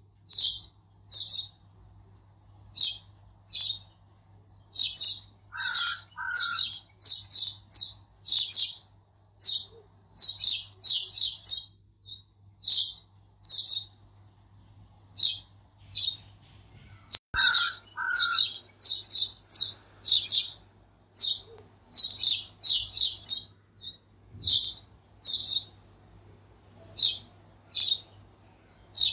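Small birds chirping: quick high chirps coming several a second, with a lower two-note call that comes back about every twelve seconds, over a faint steady low hum.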